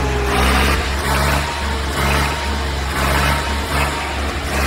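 Swaraj 855 FE tractor's three-cylinder diesel engine running hard under heavy load, its note swelling and easing about once a second; the thick black exhaust smoke marks it as working near full throttle.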